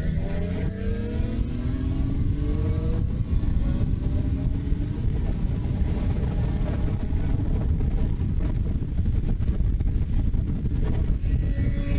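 Motorcycle engine accelerating, its pitch rising for about three seconds, then running steadily at highway speed under heavy wind rush on the helmet-mounted camera.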